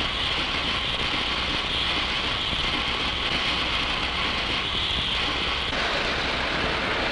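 Steady hissing rush from the steam locomotive Pere Marquette 1225 as it is fired up, changing in tone near the end.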